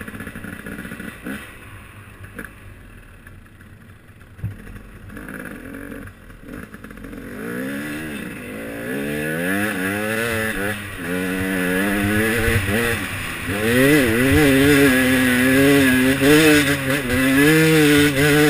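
KTM 300 XC-W dirt bike's two-stroke single-cylinder engine, heard from the bike itself: low and quiet at first, then from about eight seconds in revving up and down with the throttle, louder near the end as the bike heads up a steep hill climb.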